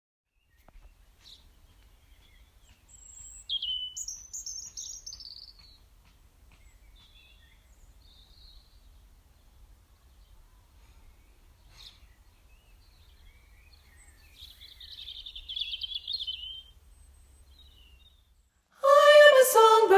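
Birds chirping, with two louder bouts of song, over a faint low rumble. Near the end, a choir of women's voices (sopranos and altos) begins singing.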